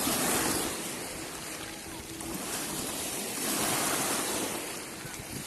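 Black Sea waves breaking on a boulder shore, two swells of surf, the first right at the start and the second about three and a half seconds in, with wind buffeting the microphone.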